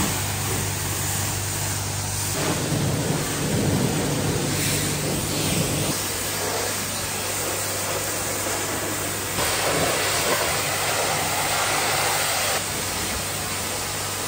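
High-pressure car-wash wand spraying water against a pickup truck and camper: a loud, continuous hiss of spray with a low steady hum underneath.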